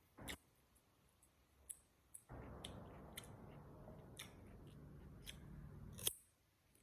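Close-up food-handling and eating sounds: a short burst and a few sharp clicks, then about four seconds of steady noise that ends with a sharp click.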